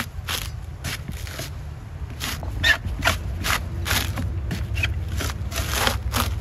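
Fibrous coconut husk being levered and torn off on a pointed steel husking spike: a quick series of short rasping rips and cracks, about two a second.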